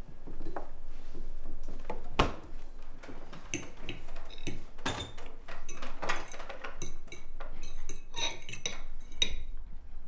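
Cutlery on dinner plates: forks and knives clinking in many short, ringing taps through the second half. A single thump about two seconds in.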